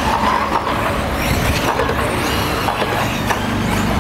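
Electric RC truggies racing on a dirt track, their motors whining up and down in pitch with the throttle, over a steady low rumble.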